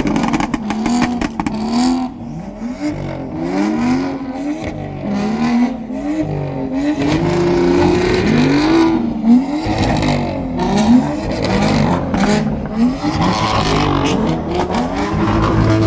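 Performance car engine revved again and again in quick blips, each rising and falling in pitch, with scattered sharp pops from the exhaust.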